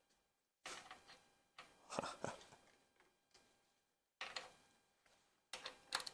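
Faint, irregular metallic clicks and clinks of a socket wrench and hand tools working a bolt on the engine, in short groups with pauses between them.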